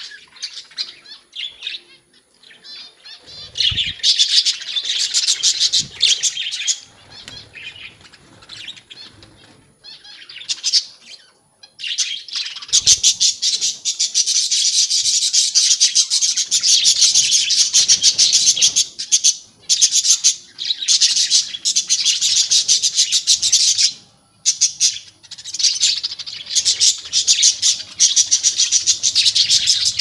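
A flock of budgerigars chattering and warbling, many birds calling at once in fast, high twittering. The chatter comes in scattered spells at first and becomes nearly continuous from a little before halfway through.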